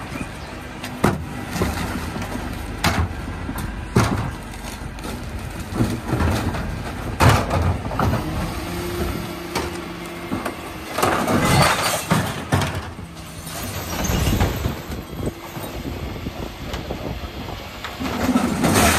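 Dennis Elite 6 refuse truck's rear bin lifts tipping wheelie bins into the hopper: sharp bangs and knocks of the plastic bins against the lift, and longer rushing spells as the recycling slides out, over the truck's engine running steadily.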